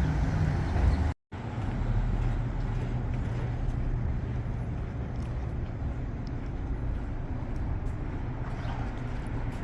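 Steady city street traffic: passing cars and engine noise. It cuts out completely for an instant about a second in.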